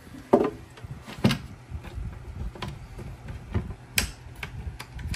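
Knocks and clicks from a wooden crate being handled, its lid shut and its latch fiddled with: a loud knock about half a second in, then scattered lighter taps and clicks, with a sharp click about four seconds in.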